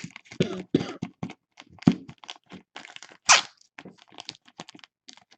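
Trading cards and plastic card holders being handled on a tabletop: a run of small clicks, taps and scratchy rustles, with one louder rustle about three seconds in.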